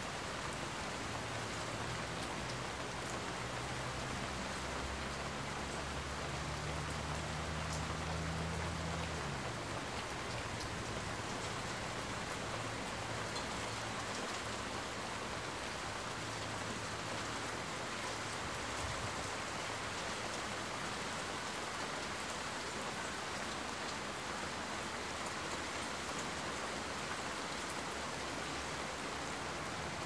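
Steady rain falling, an even hiss of drops on surfaces. A low hum sits underneath for about the first nine seconds, then slides down in pitch and fades out.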